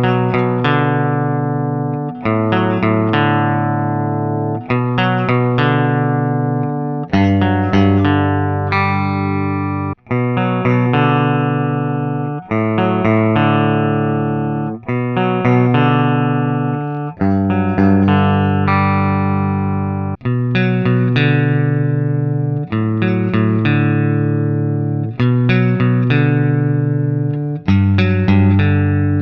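Guitar playing a slow chord progression: a new chord strummed about every two and a half seconds and left to ring out.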